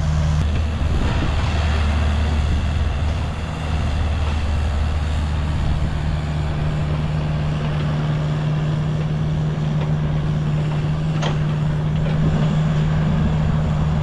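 Diesel engine of a piece of heavy earthmoving equipment running steadily, its tone shifting about six seconds in as the revs change. A single short knock sounds about eleven seconds in.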